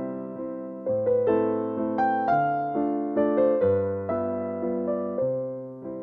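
Background music: a slow piano piece, its notes struck and left to fade over a changing bass line.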